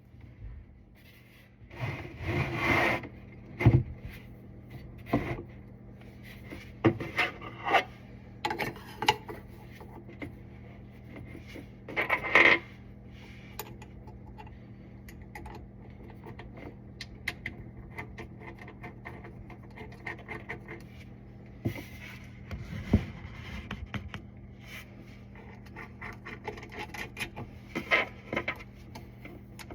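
Irregular scraping, rubbing and sharp knocks of parts and tools being handled during a garbage disposal installation, over a faint steady low hum.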